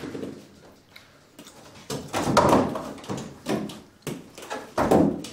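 Knocks and rattles of a capuchin monkey clambering from a hanging rope onto a toy playhouse roof, a few short bumps with the loudest about two seconds in and again near the end.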